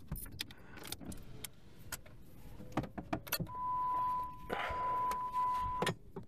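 Keys and small items clicking and rattling inside a parked Dodge car. Past halfway, the car's electronic warning tone sounds as one steady, unbroken beep for about two and a half seconds, then stops.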